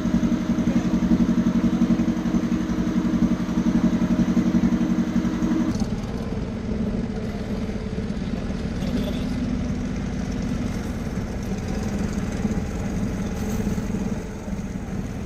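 A small engine running steadily with an even hum. About six seconds in the hum drops in level and its pitch changes slightly, and it runs on more quietly.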